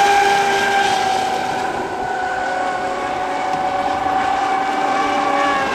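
Fast electric RC offshore race boats running flat out, a steady high whine of motors and propellers whose pitch drifts slightly lower as they pass.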